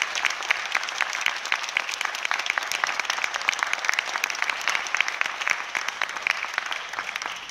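Theatre audience applauding, a dense steady patter of many hands clapping.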